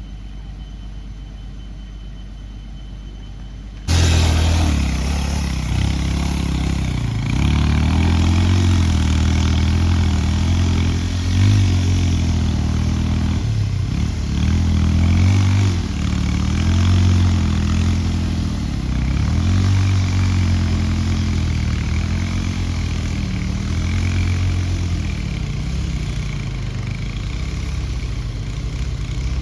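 Diesel engine of a heavy earthmoving machine, an excavator or bulldozer, working, its pitch dipping and rising again and again as the load comes and goes. It cuts in loudly about four seconds in, after a fainter low hum.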